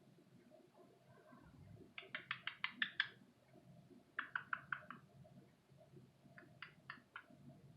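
Cockatiel making three quick runs of short, clicking chirps, each run a few notes in rapid succession.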